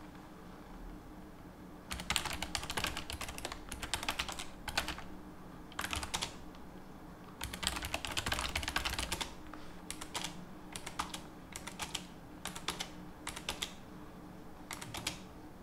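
Typing on a computer keyboard: quick runs of key clicks begin about two seconds in and continue with brief pauses. Shorter bursts of a few keystrokes follow in the second half.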